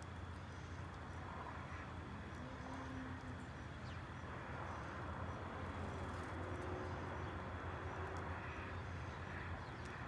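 Steady outdoor background rumble, with faint scattered chirps and light ticks from small birds feeding on seed on concrete.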